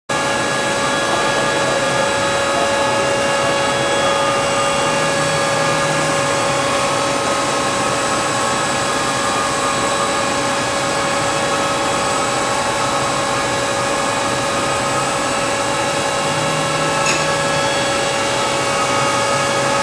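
DMG Mori DMU 50 five-axis CNC machining centre running a milling program with coolant spraying inside the enclosure: a steady hiss with several held whining tones over it.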